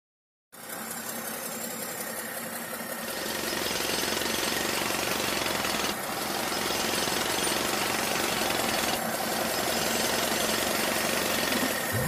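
Heavy machinery sound effects: engines running with rough, rattling working noise. The sound starts about half a second in, gets louder at about three seconds, and switches to a different machine sound about every three seconds.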